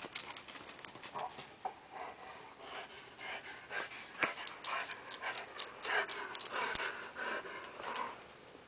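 A dog panting close to the microphone, with short scuffs and rustles mixed in.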